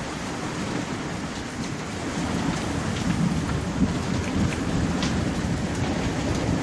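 Heavy hail pelting down: a dense, steady roar of hailstones striking surfaces, with many sharp individual ticks in it, growing louder about two seconds in.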